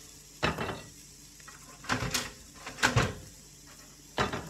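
Several sharp knocks and clatters of an oven door and a metal tray as toasted bagels are taken out of the oven.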